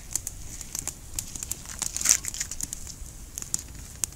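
Skin being pulled off a small zander by hand with a knife: irregular crinkling and crackling clicks, the sharpest about two seconds in.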